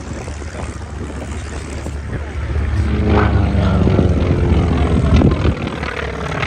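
Propeller airplane engine passing overhead, growing louder about halfway in and then easing off.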